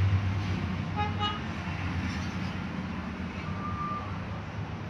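Background motor-vehicle noise: a steady low engine hum, with a short horn toot about a second in.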